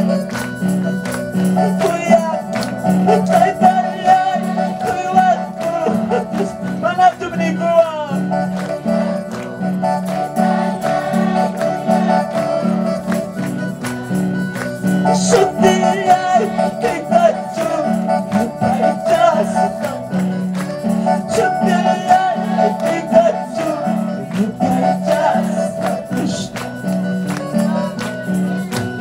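Live worship music: a band with electronic keyboard plays a steady beat while voices sing, with a tambourine jingling along.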